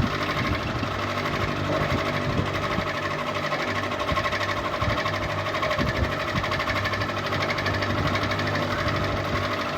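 Ceiling fan running, a steady motor hum with a fast, even rattle.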